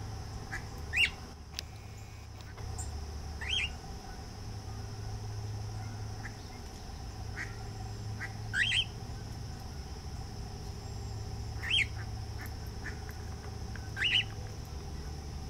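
A bird giving short, loud, upslurred calls, five times a few seconds apart, over a low steady hum.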